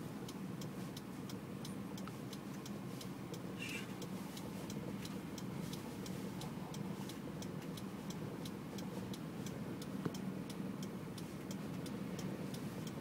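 A car's indicator relay ticking steadily, about two ticks a second, over the low steady hum of the car's engine and road noise heard inside the cabin.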